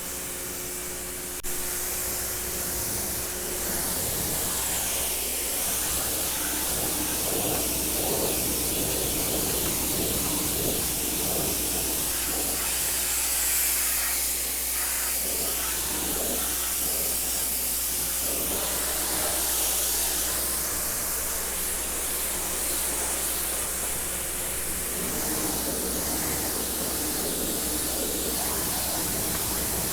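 Prymax 3000 PSI electric pressure washer spraying a door and deck: a steady, loud hiss of the high-pressure water jet over the low hum of the electric motor-driven pump. It gets slightly louder about a second and a half in.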